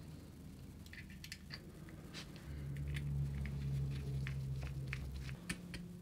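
Small scattered clicks and taps of fingers fitting together the casing and connector of a DJI Air Unit. A low steady hum comes in about two and a half seconds in and stops shortly before the end.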